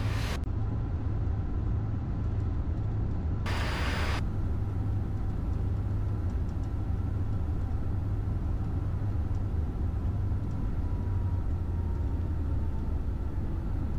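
Steady low rumble inside the cockpit of a Gulfstream G200 business jet on short final approach, engines and airflow running evenly. A brief burst of hiss comes about three and a half seconds in.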